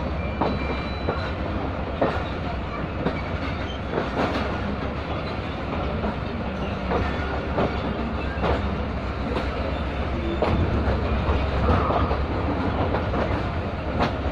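Passenger train coaches rolling over the track, a steady rumble with irregular wheel clacks at rail joints and points.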